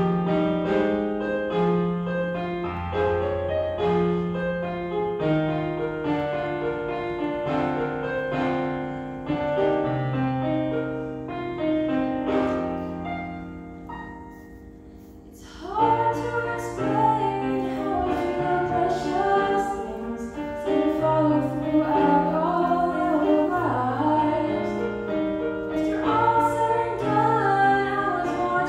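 Piano accompaniment playing alone for about fifteen seconds and growing quieter, then a woman's solo voice comes in singing over the piano.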